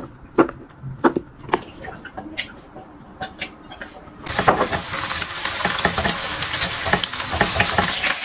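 A knife chopping on a cutting board a few times, then about four seconds in a sudden loud sizzle as food hits a hot pan, which keeps sizzling while a spatula stirs and scrapes the stir-fry.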